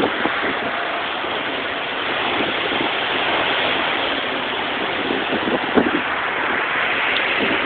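Hurricane wind and heavy rain: a steady, unbroken rushing noise.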